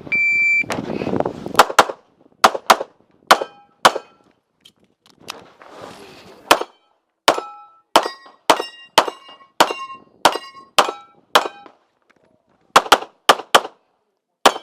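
Electronic shot-timer start beep, then a handgun string of fire of about twenty shots in quick clusters, with a pause in the middle. Many shots are followed by the ringing clang of steel targets being hit.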